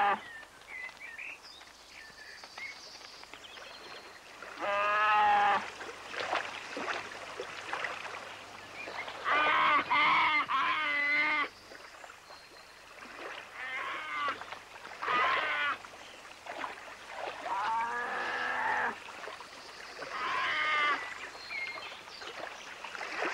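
An animal calling again and again: about seven drawn-out cries with wavering pitch, spaced a few seconds apart, two of them close together near the middle.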